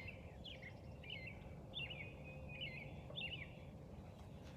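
A small bird chirping faintly, a string of short high notes, some sliding in pitch, repeated every half second or so, over a faint low outdoor rumble.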